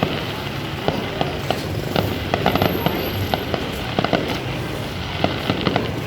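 Fireworks going off: irregular sharp bangs and crackles, several a second at times, over a steady rumbling background.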